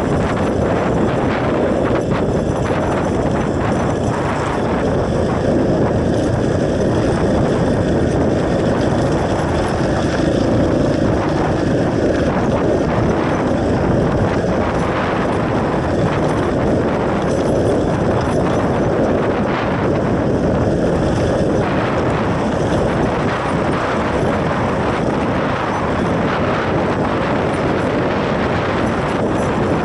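Motorcycle running at a steady pace: a dense, even rumble with no clear rise or fall in pitch.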